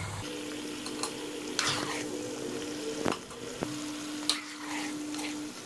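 Soaked chana dal (split Bengal gram) deep-frying in hot ghee, a steady sizzle, with two clicks of a steel ladle against the pot about three seconds in. A steady low hum runs beneath it.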